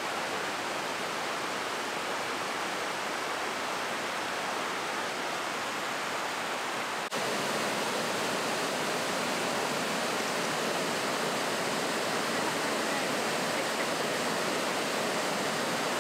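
Steady rush of a river cascading over rock ledges in small waterfalls. It gets slightly louder at a cut about seven seconds in, where a bigger, whiter cascade takes over.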